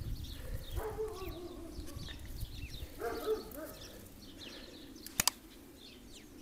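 Small birds chirping throughout, with two lower, longer calls about one and three seconds in. About five seconds in come two sharp clicks close together, hand pruning shears snipping lavender stems.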